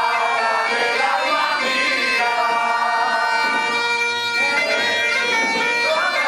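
Galician gaita (bagpipe) playing a traditional tune over its steady drone.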